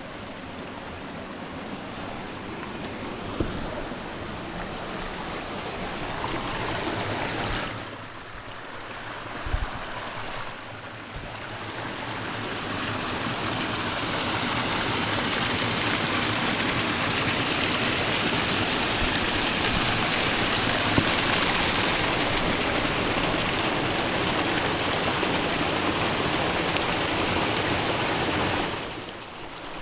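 River water rushing and splashing over rocks. It dips twice early on, grows louder after about twelve seconds, holds steady, then drops off near the end.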